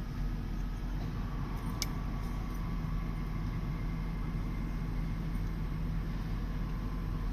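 Idling car engine heard from inside the vehicle: a steady low hum, with a faint thin steady tone from about a second in and a single sharp click just before two seconds.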